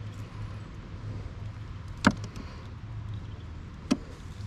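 Two sharp knocks on a plastic fishing kayak, about two seconds apart, while a large catfish is handled in the boat, over a steady low hum.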